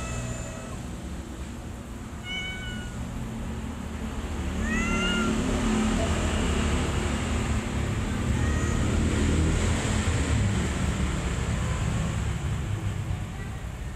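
Kitten mewing: several short, high-pitched mews a couple of seconds apart, the loudest about five seconds in and fainter ones later. Beneath them a low rumble gets louder after about four seconds.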